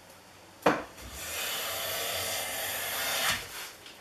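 Stanley No. 3 smoothing plane taking a stroke along the edge of a poplar board, its iron cutting a thin shaving: a knock as the plane sets down on the wood about half a second in, then a steady hissing cut lasting about two and a half seconds.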